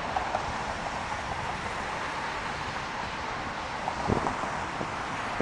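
Wind rushing over the microphone of a moving bicycle, with steady traffic noise beneath it; a few faint knocks and a louder thump about four seconds in.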